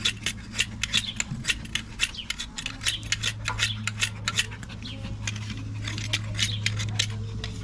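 A knife blade shaving wood from a wooden axe handle in quick, irregular scraping strokes, several a second, over a steady low hum.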